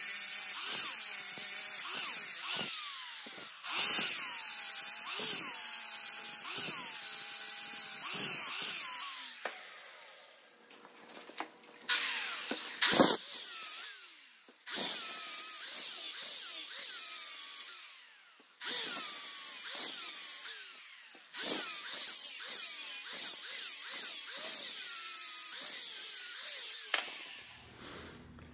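Angle grinder with a sanding disc beveling the edge of an aluminum bar held in a vise. It makes repeated grinding passes of a few seconds each, and the motor's whine dips in pitch under load and rises again between passes. There are short pauses about ten and eighteen seconds in.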